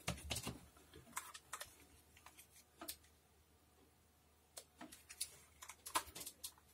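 Faint, scattered clicks and light taps of a spool of solder wire being handled and moved: a group near the start, a few more over the next few seconds, and another group near the end.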